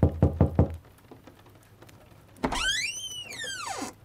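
Rapid knocking on a wooden door that stops under a second in. About halfway through, a door creaks open with one long squeak that rises and then falls in pitch.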